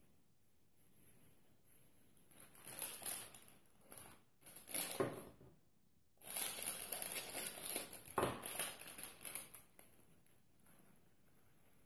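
Rustling and crinkling handling noise in three bursts, the last and longest starting suddenly about six seconds in.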